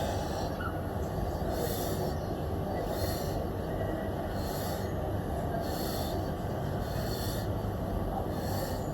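A person breathing hard in a regular rhythm through an exercise set, one hissing breath about every second and a half, over a steady low rumble.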